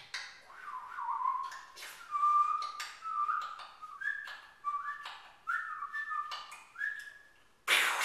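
A person whistling a run of short notes, each sliding up into its pitch, the tune climbing overall, broken by sharp clicks. Near the end a loud burst of hissing noise cuts in.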